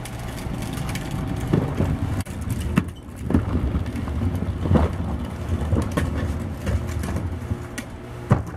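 Plastic wheeled trash cart rolling over concrete, a low steady rumble from its wheels with about half a dozen sharp knocks and clatters along the way.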